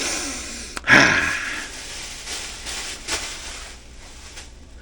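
A man's breathy exhales, two of them about a second apart at the start, then softer rustling with a couple of short clicks.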